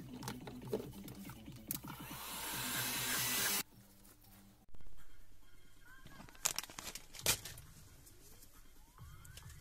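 Electronic background music with workshop handling noises. About two seconds in, a rushing hiss grows louder and then cuts off suddenly. Later come a few sharp clicks and knocks.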